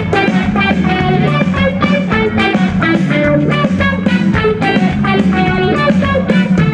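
A live band playing through a concert PA: electric guitars, bass, keyboard and drums in a steady, upbeat rhythm, an instrumental passage between sung verses.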